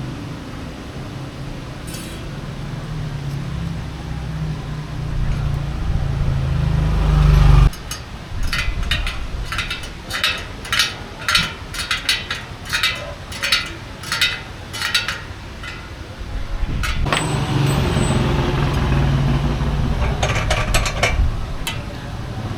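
Bicycle rear hub freehub ratchet clicking, sharp clicks at about two a second, with low rumble before and after that stops and restarts abruptly. The hub is loud, and the rider likes it loud.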